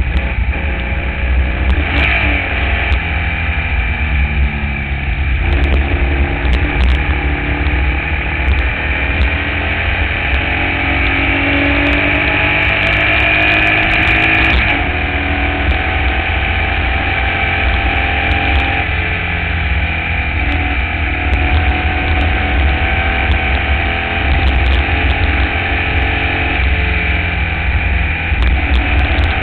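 Formula Vee race car's air-cooled Volkswagen flat-four engine running hard at racing speed, its revs climbing and dropping back several times with gear changes and lifts for corners. A heavy low rumble of wind on the onboard microphone runs under it.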